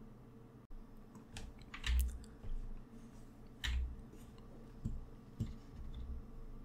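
Computer keyboard keys pressed a handful of times: separate clicks, some with a soft low thud, spread across a few seconds.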